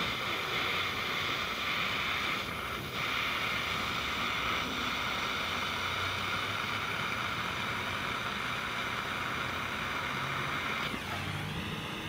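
Small handheld butane torch burning with a steady hiss as it heats a plug terminal to melt solder into the wire. The hiss dips briefly about two and a half seconds in and changes and drops away near the end.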